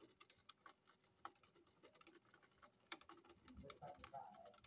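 Near silence with scattered faint clicks, and a faint voice about three and a half seconds in.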